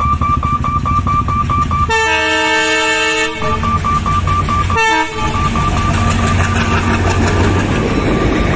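Indian Railways diesel locomotive approaching a level crossing: one long horn blast of about a second and a half, then a short toot a second or so later, over its engine's low rumble, which grows louder as it nears. A rapid, high-pitched pulsing ring keeps going throughout.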